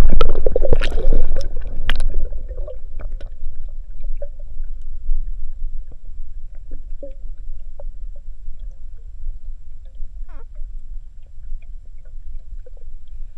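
Splashing and bubbling as an underwater camera goes below the river surface, then the muffled low rumble of water heard underwater, with scattered faint clicks and ticks.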